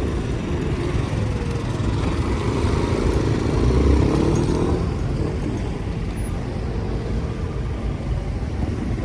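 Rush-hour city street traffic with a steady rumble of engines and tyres. One vehicle's engine passes close, swelling to the loudest point about four seconds in, then fading.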